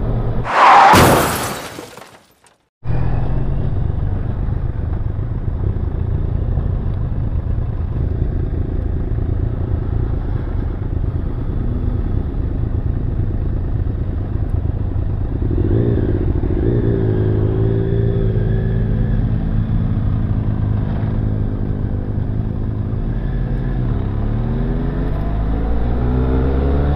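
Benelli TRK 502 motorcycle being ridden: a steady run of engine and road noise. The engine note climbs as it accelerates about halfway through and again near the end. It opens with a brief loud rush of noise that fades out to a moment of silence.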